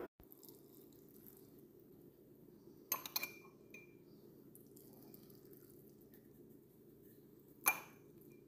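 A metal spoon clinking against the rim of a small glass canning jar while roe is spooned in: a quick cluster of ringing clinks about three seconds in and one louder clink near the end, over a faint steady hum.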